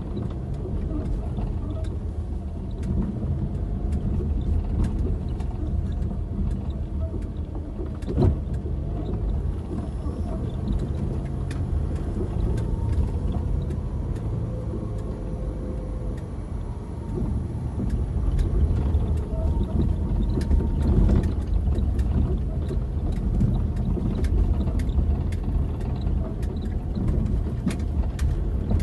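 A car driving slowly over a rough, rocky dirt road, heard from inside the cabin: a steady low rumble of engine and tyres with frequent small knocks and rattles as it jolts over the stones. One sharp knock comes about eight seconds in, and the rumble grows louder in the second half.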